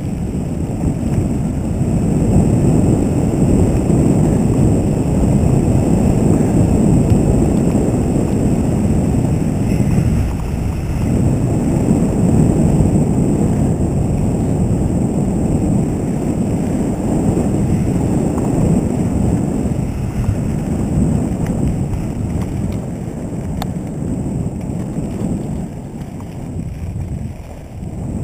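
Wind buffeting the microphone of a camera on a moving mountain bike, with the tyres rolling and rattling over a dirt trail. It is a continuous low rumble that eases briefly about ten seconds in.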